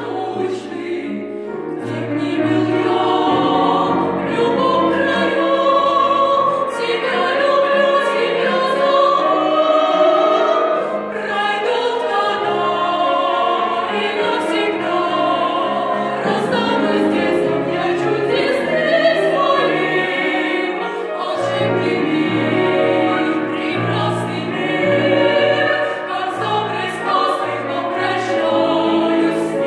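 Vocal ensemble singing a Russian song together with piano accompaniment, the voices carrying a slow, sustained melody.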